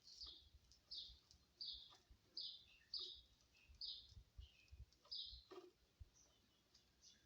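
Faint, repeated short chirps of a small bird, roughly one a second, each note falling slightly in pitch, with a couple of faint knocks among them.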